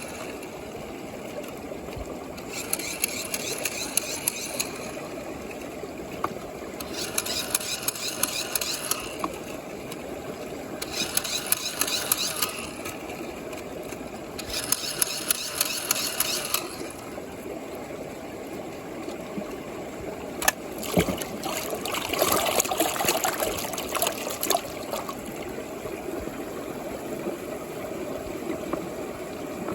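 Water churning and bubbling in a plastic tube, with a rapid buzzing rattle that comes in four spells of about two seconds each. About two-thirds through come a few sharp clicks and a stretch of louder gurgling.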